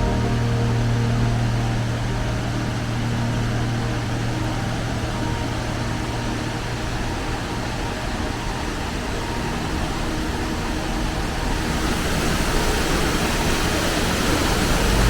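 Waterfall crashing into its plunge pool: a steady rushing roar of falling water that grows brighter and hissier about twelve seconds in.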